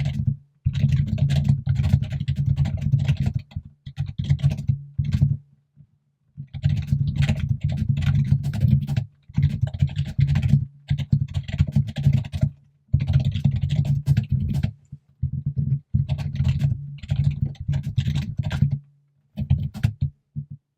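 Rapid, loud typing on a computer keyboard: fast runs of key clicks in bursts of a few seconds, broken by brief pauses.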